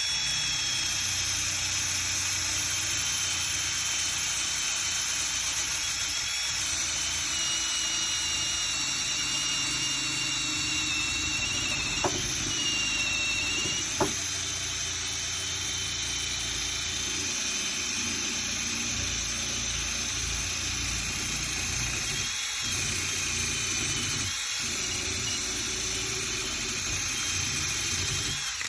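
Electric power sander running continuously against a painted car hood, sanding off old paint, with a high whine that wavers slightly in pitch. Two sharp ticks come about halfway through, and the sander cuts off near the end.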